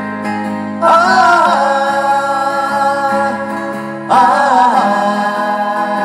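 Several acoustic guitars strumming a song's accompaniment, with a loud wavering melody line entering twice, about a second in and again about four seconds in, each note held and slowly fading.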